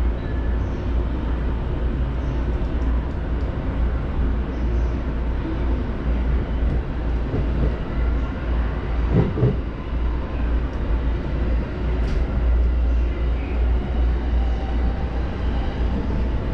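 JR East Musashino Line electric commuter train, heard from inside the car as it pulls out of a station and picks up speed: a steady, continuous running rumble from the wheels and rails. There is a brief knock about nine seconds in.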